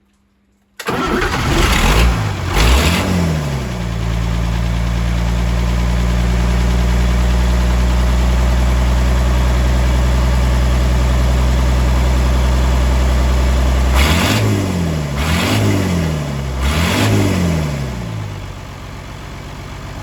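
Old tractor engine starting: it catches about a second in and is revved twice, then runs steadily. Near the end it is revved three times in quick succession and then drops back to a lower idle.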